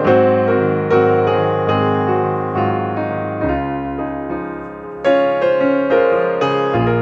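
Background piano music: a slow melody of single struck notes, each ringing out and fading before the next.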